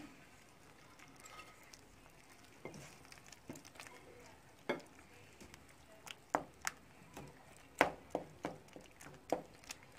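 Wooden spoon stirring soaked bread pieces through a thick milk pudding mixture in a metal pan. Scattered light taps of the spoon against the pan begin a few seconds in.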